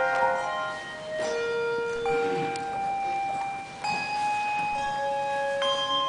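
Handbell choir ringing a slow passage: new bell notes struck every second or two, each ringing on and overlapping the ones before.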